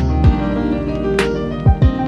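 Instrumental background music with held notes and a few drum hits, two of them close together near the end.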